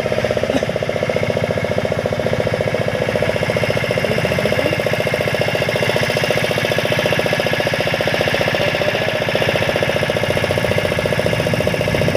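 An engine running steadily close by with a rapid, even chugging beat.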